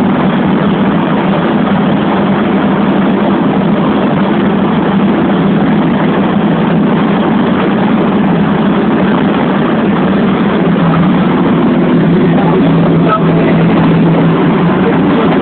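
Old van's engine and road noise heard from inside the cabin while driving at a steady speed: a loud, even drone with a steady low hum.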